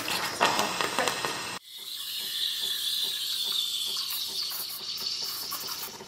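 Breville Barista Pro's steam wand steaming milk in a stainless steel pitcher: a steady hiss that starts suddenly about a second and a half in, after a short stretch of fainter noise.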